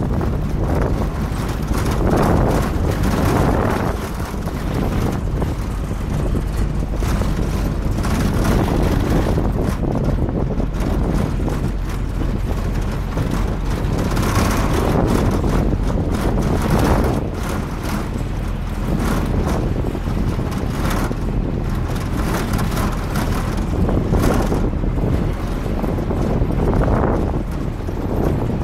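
Off-road pickup truck driving over desert sand: a steady low engine and tyre rumble under gusting wind buffeting on the microphone, which swells and eases every few seconds.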